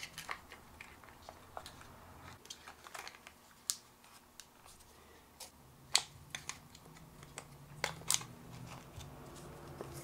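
Small plastic clicks and taps as the plastic 2.5-inch drive bracket is lifted out of a laptop's drive bay and handled, with a sharper click about six seconds in and another around eight.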